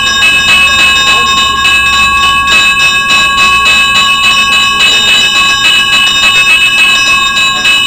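Hindu puja hand bell (ghanta) rung rapidly and without pause: a steady, loud ringing made of a fast run of clapper strikes.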